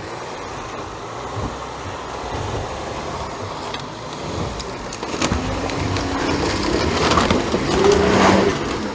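VW Touareg crawling along a muddy off-road track: the engine runs low and steady and grows louder toward the end. There are a few sharp knocks, and a short squealing scrape near the end.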